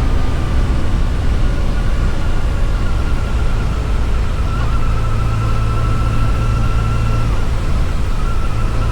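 Yamaha FJR1300 inline-four motorcycle engine running at road speed under a heavy rush of riding wind. The engine's whine drops in pitch right at the start, then changes a couple of times as the throttle is worked.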